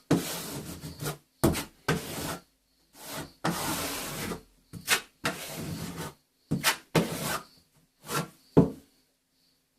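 Plastering knife scraping in a rapid series of strokes along a plaster join, pressing paper tape down into wet base coat compound; the strokes stop near the end.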